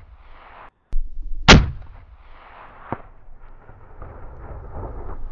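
A single shot from a scoped hunting rifle about a second and a half in, its report dying away over a moment. A fainter sharp click follows near three seconds, then a steady faint rush of noise.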